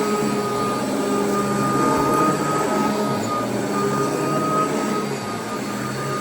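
Royal vacuum cleaner running steadily over carpet, its motor giving a constant high whine over a low hum and airflow rush.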